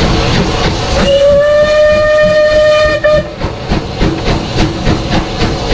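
Steam locomotive 34028 Eddystone, a rebuilt Bulleid West Country class light Pacific, hissing steam. About a second in it gives one steady whistle blast lasting about two seconds. After the whistle comes a rhythmic beat of about three a second.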